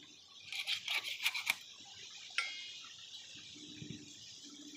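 A piece of hilsa fish being cut and scraped against the blade of a boti, a floor-mounted curved cutting blade: a quick run of crisp scratching strokes from about half a second to a second and a half in, then one sharp click.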